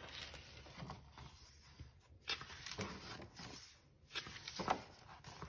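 Faint rustling and handling of a large paper picture book as its cover is opened and the page turned.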